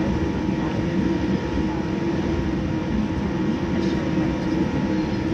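Cabin noise inside a Boeing 787-9 taxiing on the ground: a steady rumble of the rolling airliner with its engines at idle, with a few faint steady tones over it.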